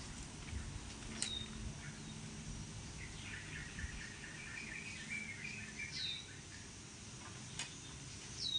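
Birds calling: sharp whistles that fall steeply in pitch about a second in, around six seconds and near the end, with a short run of chattering notes in between. A faint steady high tone runs underneath.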